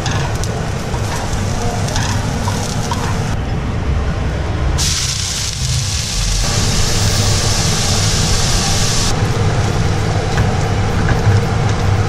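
Stir-frying in a nonstick frying pan: chopped garlic and then pea shoots sizzling in hot oil, with a brighter, louder hiss for a few seconds in the middle. A steady low rumble runs underneath.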